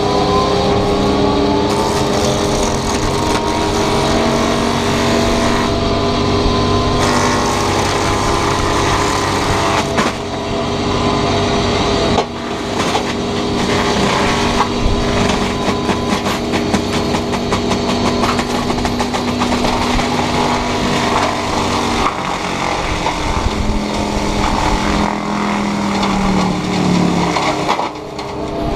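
Takeuchi TB290 excavator running hard with its FAE mulching head spinning and chewing through roadside brush: a loud, continuous machine sound with several steady tones over a noisy grind, broken abruptly a few times.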